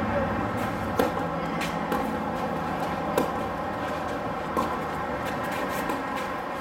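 Tennis ball struck by rackets and bouncing on a hard court: five sharp pops about a second apart, the loudest about a second in, over a steady background rumble.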